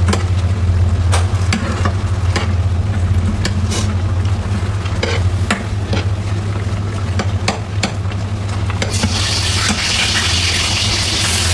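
A metal spoon stirring a coconut-milk prawn curry in a saucepan, with frequent small clinks and scrapes against the pan, over a steady low hum. A louder hiss of the simmering sauce comes in near the end.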